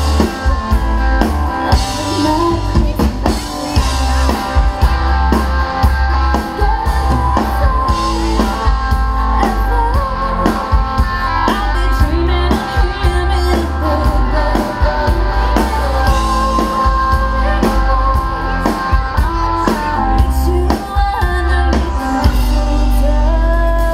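Live band playing a rock song: a singer over guitar and drum kit, with a strong steady bass beat.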